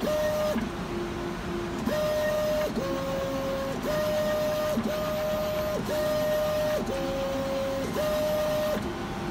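Motors of a Picnic automated pizza-assembly machine whining in a series of short steady tones, about one a second, stepping between a higher and a lower pitch as pepperoni slices are dispensed onto the pizza.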